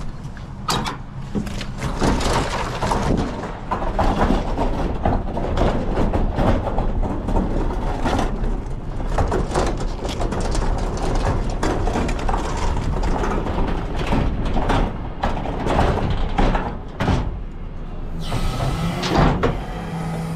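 Castors and body of a large four-wheeled recycling bin clattering and rattling as it is pushed over a wet footpath and road, over the low hum of a garbage truck's running engine. Near the end comes a short hiss and a rising hum as the truck's bin lifter starts up.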